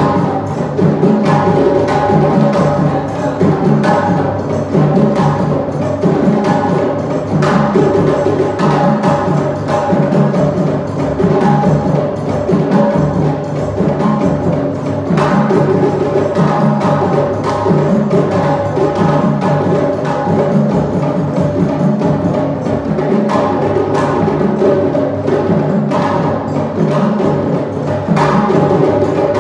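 African drums played in a fast, steady, driving rhythm, with dense strikes throughout.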